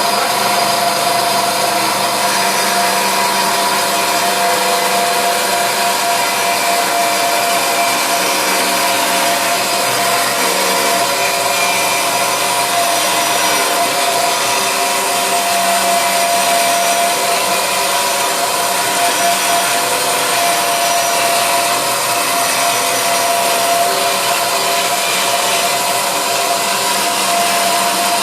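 Electric power saw running steadily as it cuts the curved edge of a bottom cross-beam pattern, with a constant motor whine and no pauses.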